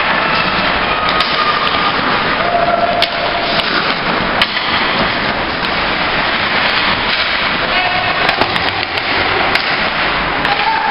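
Ice hockey play: a steady wash of rink noise with a few sharp clacks of sticks and puck, and brief calls from players.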